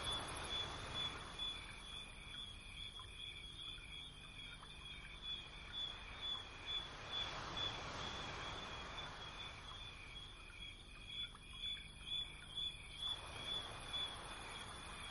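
High-pitched chirping, evenly pulsed several times a second, over a faint hiss that swells and fades.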